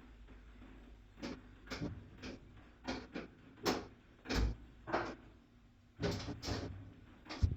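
Irregular clicks and knocks of a tool and hands working a small screw out of a washing machine's cabinet panel, about a dozen short sharp strikes spread unevenly.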